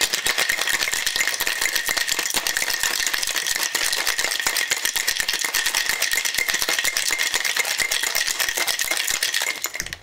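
Ice rattling rapidly inside a Boston shaker shaken hard, a dense continuous clatter with a steady high tone running under it.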